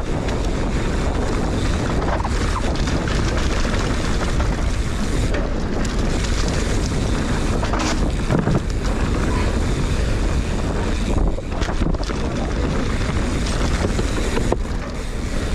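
Wind rushing over a helmet- or bike-mounted action camera's microphone as a mountain bike descends a trail at speed, with a low rumble and scattered knocks and rattles from the bike over rough ground.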